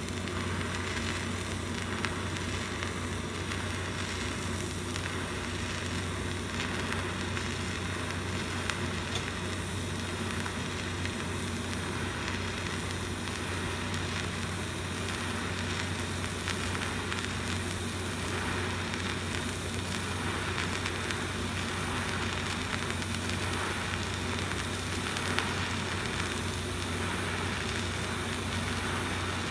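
TIG welding arc burning at about 150 amps: a steady sizzling hiss over a low hum, with a few faint crackles.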